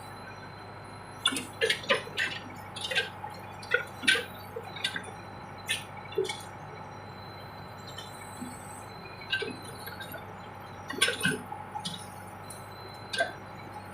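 Case 580 backhoe engine running steadily, with a scatter of sharp metallic clinks and knocks as the machine works. The knocks come in two clusters, one in the first half and another near the end.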